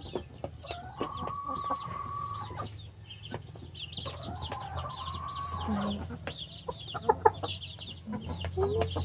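A flock of Rhode Island Red chickens calling and clucking: a steady stream of short, high, falling chirps, two long drawn-out calls, and a few louder clucks about seven seconds in.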